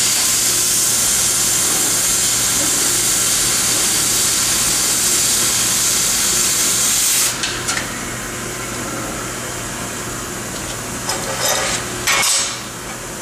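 Oxy-acetylene cutting torch on a Victor track cutter, cutting through steel plate with a loud steady hiss that cuts off abruptly about seven seconds in. A low steady hum follows, then a few metal clanks near the end as the cut plate is handled.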